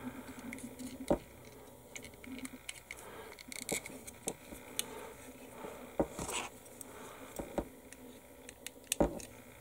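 Small plastic parts of a 1/72 Airfix model vehicle being handled and pressed together by fingers and tweezers: light scratching and scattered clicks of plastic, with a few sharper clicks about a second in, around six seconds, and near the end.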